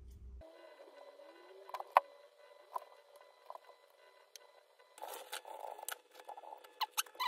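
Small metal repair tools clicking and scraping on a phone circuit board, with one sharp click about two seconds in and a stretch of scraping from about five seconds in, over a faint steady whine. A low hum stops about half a second in.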